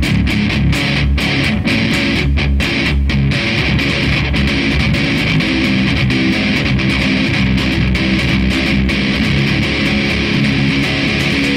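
Heavy metal band jamming: loud, dense electric guitar playing with bass, with sharp hits over about the first three seconds, then more sustained ringing chords.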